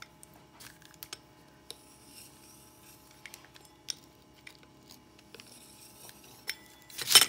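A pizza cutter's wheel rolling through thin pie dough on the counter, giving soft scrapes and small clicks. A sharp knock comes just before the end.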